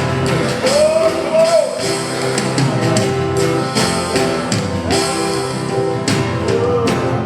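Live worship band playing an upbeat rock-style song with a steady drum beat and a voice singing over it.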